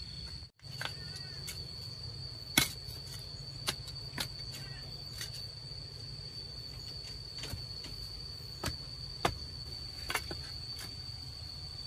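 Crickets trilling steadily on one high note, with irregular knocks and taps scattered through, the loudest about two and a half seconds in.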